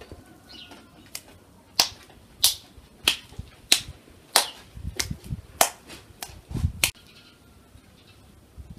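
Wet hands slapping and patting minced chicken to shape lula kebab: about ten sharp smacks at an even pace, stopping about seven seconds in.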